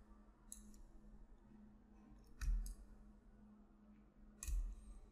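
Computer mouse clicking: a few sharp clicks, the loudest about two and a half seconds in and again shortly before the end, over a faint steady hum.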